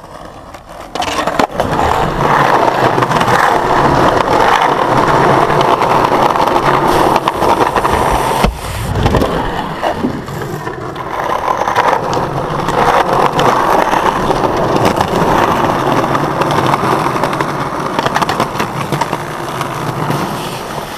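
Skateboard wheels rolling over rough concrete: a loud, steady grinding roll that starts about a second in, with a brief knock about eight and a half seconds in.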